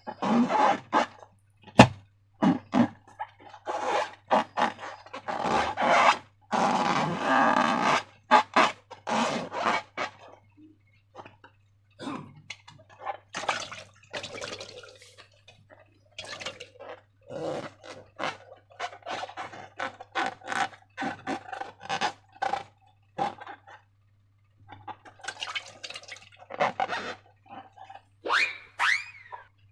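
Slime being squeezed and worked by hand, with sticky, crackling squelches coming in irregular bursts. There is a sharp click about two seconds in and a brief squeak near the end.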